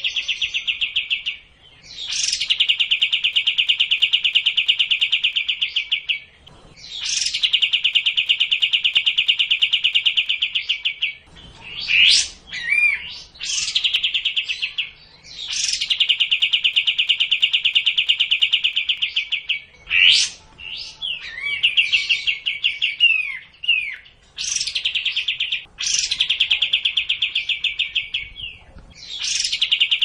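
Kapas tembak bulbul singing: long, rapid, buzzy trills of a few seconds each, every one opening with a sharp high note and repeated over and over, with a few short whistled notes between them around the middle.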